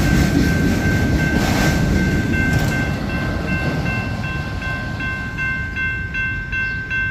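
Rumble of a freight train's cars rolling past a grade crossing, slowly fading, with the crossing's warning bells ringing over it in a steady run of repeated strokes.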